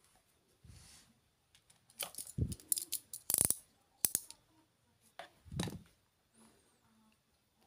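A run of sharp clicks and light knocks from hand tools and a drill's power cord being handled, with pliers set down on the floor. The clicks bunch between about two and six seconds in.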